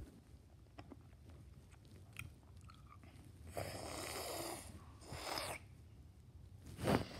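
A boy breathing softly and close into a phone's microphone, with two longer breathy exhales about halfway through and a louder one near the end, over faint clicks of the phone being handled.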